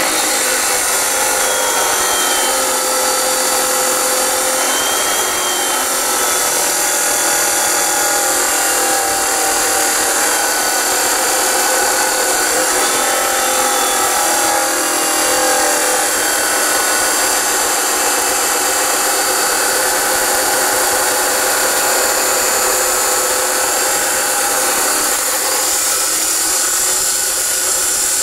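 Ridgid 14-inch abrasive cutoff saw with a composition wheel grinding through 1-1/2-inch square metal tubing with a 3/16-inch wall. A loud, steady grinding whine of the wheel under load.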